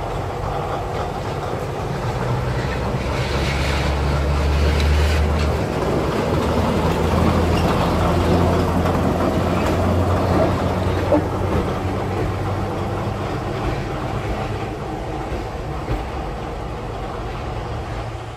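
Diesel locomotive running close by with a steady low engine drone, its pitch shifting slightly a little over five seconds in, with a few sharp clicks of wheels over the rails.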